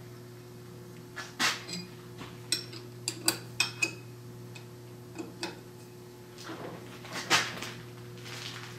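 Steel Allen wrenches clinking and clicking against the alignment fixture's steel plate and socket-head bolts as the plate is tightened on the lathe. It is a dozen or so short, irregular metal clinks over a steady low hum.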